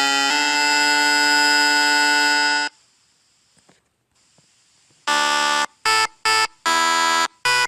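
A steady, buzzy electronic tone that cuts off sharply about two and a half seconds in, then about two seconds of near silence, then a run of five short horn-like honks of uneven length.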